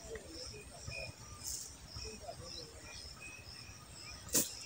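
Insects chirping in short repeated pulses with a few bird calls, and one sharp click about four seconds in.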